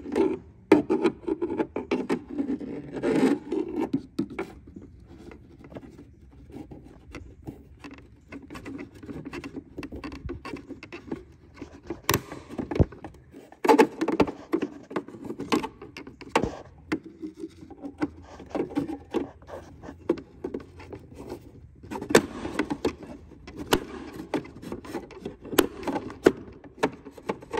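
A pry tool scraping and levering against the plastic housing and lens of a Ford F-350 tow mirror's marker light, with irregular clicks and sharp snaps as the broken lens's plastic tab is worked loose.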